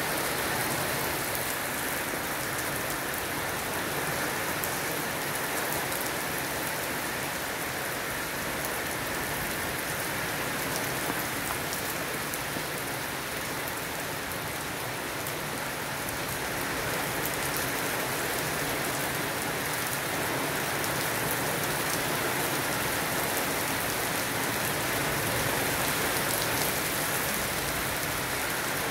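Steady rain falling, an even hiss of many drops, easing slightly midway and picking up again later.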